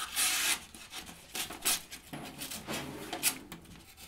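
Small multi-tool knife blade cutting through paper: a long rasping slice about half a second long at the start, followed by several shorter scraping strokes.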